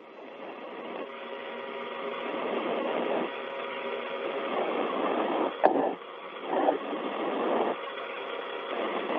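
Hiss and static on an open space-to-ground radio channel, rising over the first couple of seconds and then surging unevenly, with a short click a little over halfway through.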